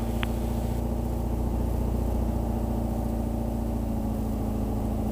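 Tecnam P2010's single piston engine and propeller running steadily at low taxi power, heard from inside the cockpit as an even low drone.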